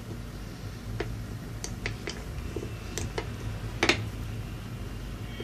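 Light, irregular clicks and taps from a plastic toy rolling pin and fingers handling Play-Doh on a plastic tabletop, the sharpest about four seconds in, over a faint steady low hum.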